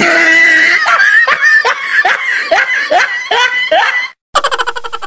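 Laughter right after a joke's punchline: a run of high-pitched giggles, stopping about four seconds in. Near the end a brief steady buzzing tone starts.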